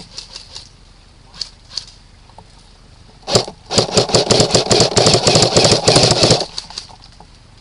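Airsoft AK rifle firing: a single shot a little over three seconds in, then a full-auto burst of rapid shots lasting about two and a half seconds.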